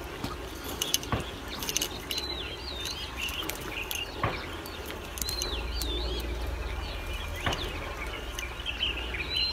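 A songbird repeating a short swooping whistled phrase over and over. Three soft knocks come about three seconds apart, and a low rumble swells in the middle.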